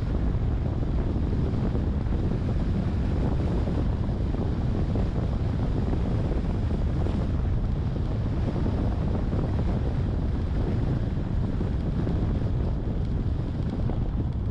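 Steady low wind rumble buffeting the microphone of a camera on a moving car, mixed with road noise.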